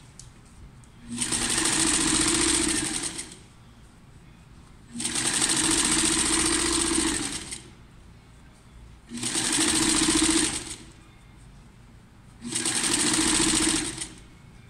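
Electric sewing machine stitching in four short runs of about two seconds each, stopping briefly between them.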